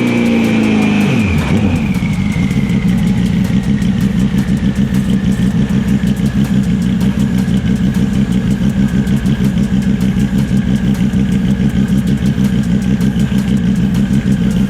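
Twin-turbo Porsche 996 flat-six on a chassis dyno, coming off a run: the engine pitch drops over the first second or so, then it settles to a steady, lumpy idle. A high whine falls slowly in pitch as things spin down.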